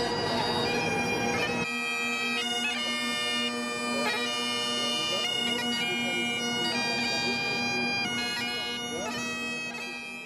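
Great Highland bagpipes playing a tune over a steady drone. Street noise beneath it drops away about two seconds in, and the piping fades out near the end.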